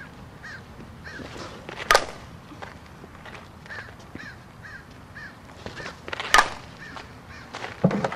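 Two sharp cracks of a softball bat hitting the ball, about four and a half seconds apart, with a duller thump near the end. A bird calls in short chirps about twice a second in the background.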